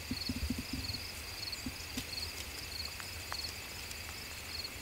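Crickets and other insects chirping in the grass: a faint high pulsed chirp about twice a second over a steady high drone, with low rustling near the microphone and a couple of faint clicks.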